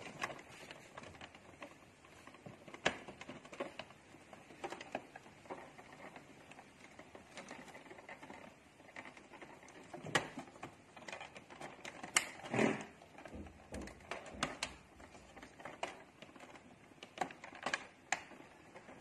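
Irregular plastic clicks, taps and knocks from hands handling the inside of an Epson L3210 inkjet printer, working its scanner-unit stand loose. A few louder knocks come about halfway through.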